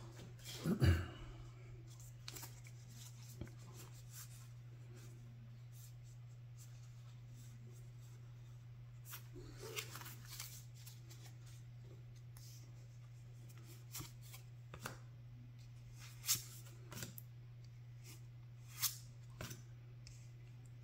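A stack of trading cards from a freshly opened booster pack being thumbed through by hand: faint, scattered flicks and slides of card against card, the loudest rustle about a second in, over a steady low hum.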